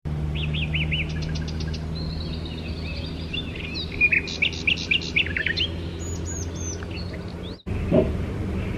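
Small birds chirping and calling: quick runs of short chirps and rising and falling whistles, over a steady low hum. The sound cuts off suddenly near the end.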